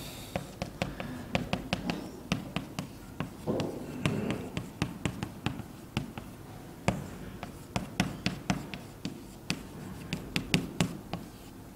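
Chalk writing on a chalkboard: a run of sharp, irregular taps and short scrapes, several a second, as the letters are formed.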